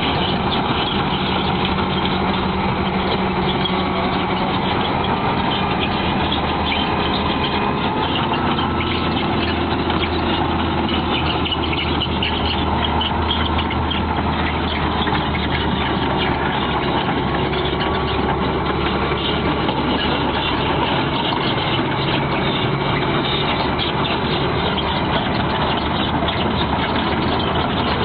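Heavy construction machine's engine running steadily, with a low hum whose deepest note drops away about 21 seconds in.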